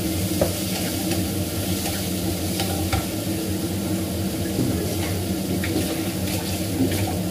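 Cucumber slices sizzling steadily as they stir-fry in an oiled frying pan, with a few light knocks of a wooden spatula against the pan in the first three seconds. A steady low hum runs underneath.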